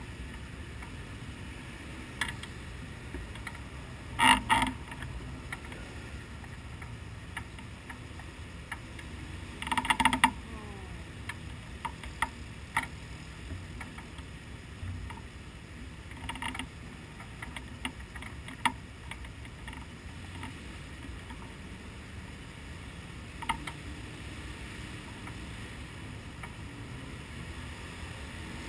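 Steady low rumble with scattered clicks and rattles from a parked race car's cockpit as the strapped-in driver shifts, with two louder clattering bursts about four and ten seconds in.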